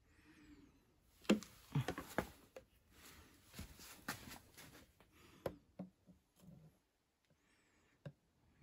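Scattered light clicks and knocks with some rustling, from parts and the opened casing of an electric unicycle being handled on a workbench. A cluster of knocks comes a little over a second in, and single clicks follow later.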